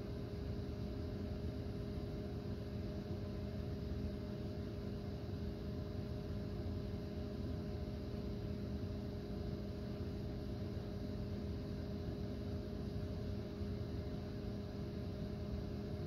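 A steady mechanical hum with a few low steady tones over a dull, even rumble, unchanging throughout.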